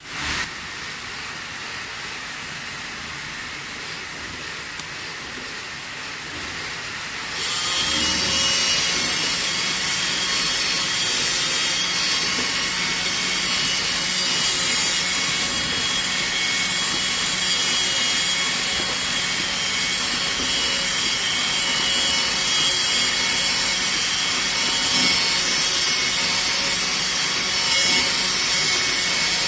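CNC knife cutting table running with a steady mechanical noise, which grows louder about seven seconds in as a steady whine joins it.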